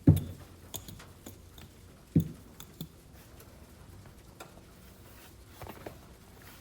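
Kitchen handling sounds while making pizza: two sharp, dull thumps about two seconds apart, the first at the very start, with scattered lighter clicks and taps between and after them.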